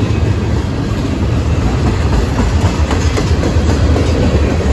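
Freight train's tank cars rolling past close by: a loud, steady low rumble of steel wheels on rail, with a few faint clicks a little past the middle as wheels cross the rail joints.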